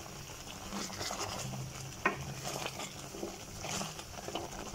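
Sugar syrup with wood apple pieces bubbling and sizzling in a metal saucepan as it cooks down and thickens, with a spatula stirring and scraping the pan; a sharp tick about two seconds in.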